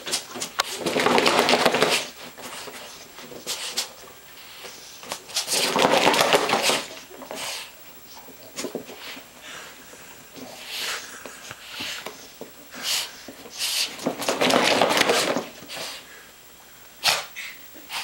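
A dog chewing and squeezing a rubber chicken toy, which lets out three long squawks several seconds apart, with short clicks and crackles of chewing in between.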